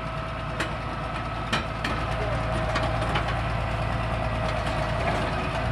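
Hitachi EX200 excavator's diesel engine running steadily, with a few sharp metallic clicks or knocks.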